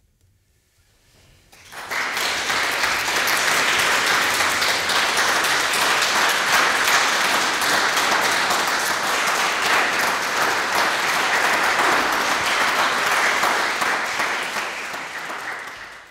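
Audience applauding: a dense, even clapping that starts about a second and a half in and fades out near the end.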